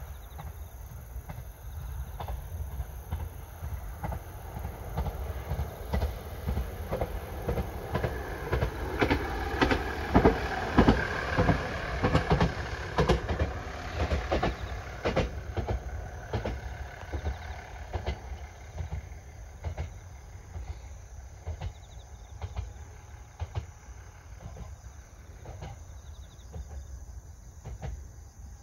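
Single-car Ise Railway Ise III-type diesel railcar passing, its wheels clicking over the rail joints. The clicks build to their loudest about ten seconds in, then fade as the railcar moves away.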